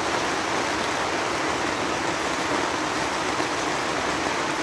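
Heavy rain pouring down on a tent, heard from inside as a steady, dense hiss of drops on the fabric.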